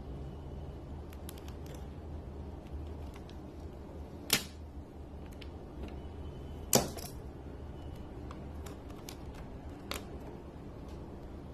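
Sharp clicks and taps of small parts being handled on a workbench: two louder clicks about four and seven seconds in, a softer one near ten seconds, and light ticks in between, over a low steady hum.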